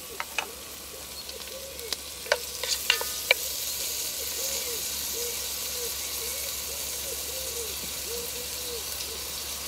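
Onion, tomato, garlic and ginger frying in hot oil in a cast-iron Dutch oven over a wood fire: a steady sizzle that grows a little louder after about three seconds. A few sharp clicks come in the first three seconds.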